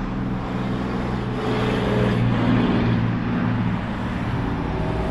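Road traffic passing by: a steady engine hum with road noise that swells to its loudest in the middle, as a vehicle goes past, and then eases.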